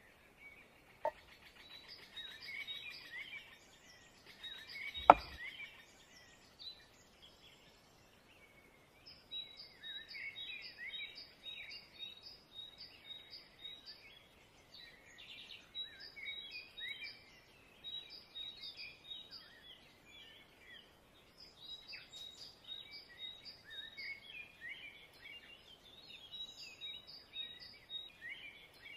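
Small birds chirping and singing, with quick runs of short high notes repeated at one pitch. A sharp knock about five seconds in is the loudest sound, with a fainter click about a second in.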